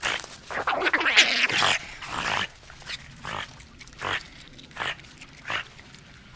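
Eurasian otter calling: a dense run of overlapping calls for the first two seconds or so, then single short calls spaced about half a second to a second apart.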